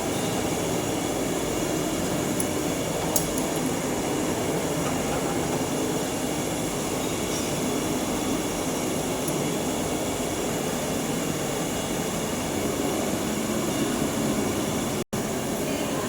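Steady, even background noise with a small click about three seconds in, cutting out for an instant near the end.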